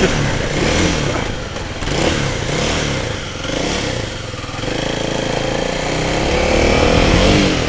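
Motorcycle engine running at speed, its pitch rising and getting louder over the last few seconds as it accelerates.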